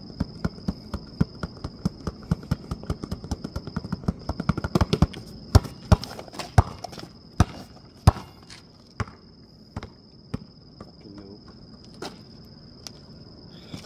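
A basketball dribbled hard and fast on rough outdoor pavement: a rapid, even run of bounces, about four a second, for the first five seconds, then a few slower, harder bounces and only scattered knocks after about eight seconds. A steady high insect trill runs underneath.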